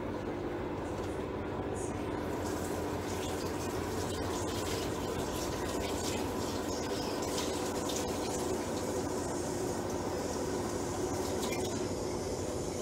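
Lentil and sausage stew heating toward the boil in a lidded cast-iron pot on an induction hob: a steady hiss with fine crackles, over a steady hum.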